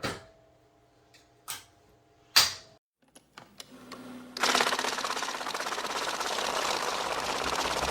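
A few sharp knocks of parts being handled, then about four and a half seconds in a power tool starts and runs steadily with a fast, even buzzing rattle.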